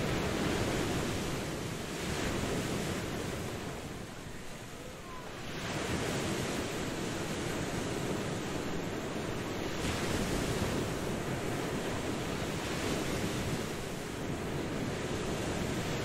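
Sea waves washing onto a beach, a steady rush of surf that swells and eases every few seconds, with a brief lull about four seconds in.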